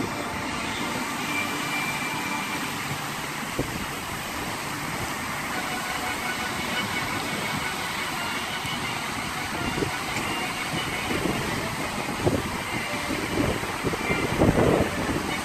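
Steady rushing hiss of a large fountain's many water jets spraying and falling back into the pool. Gusts of wind buffet the microphone, mostly in the last few seconds.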